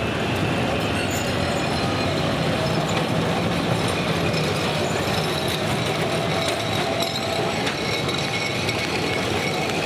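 Calcutta Tramways two-car electric tram running past on street track: steady noise of wheels and running gear on the rails.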